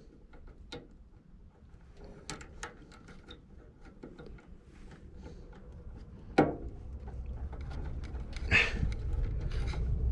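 Hands working wires and spade connectors at an HVAC unit's control board: scattered small clicks and rattles, with a sharp knock about six seconds in and another about eight and a half seconds in, and a low rumble building in the second half.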